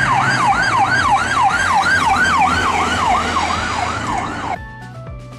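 Ambulance-style siren in a fast yelp, its pitch sweeping up and down about three times a second, cutting off suddenly near the end as music begins.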